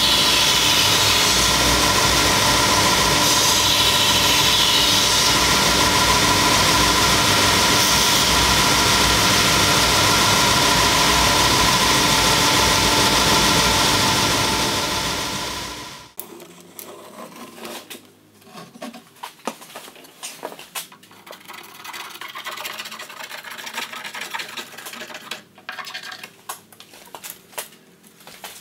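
Edge belt sander running steadily with a constant hum while a thin wooden strip is sanded on its belt; the machine sound fades away a little past halfway. After that, faint scattered light knocks and rubbing of thin wooden strips being handled.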